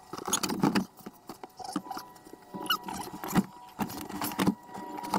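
Leather rear seat of a Chevrolet HHR being handled and pushed into place by hand: a string of irregular knocks, clicks and rustles.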